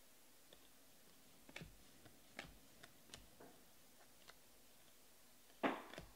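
A stack of Panini Prizm football cards being thumbed through by hand: faint scattered clicks of card edges snapping past each other, then a louder short swish of card sliding on card near the end.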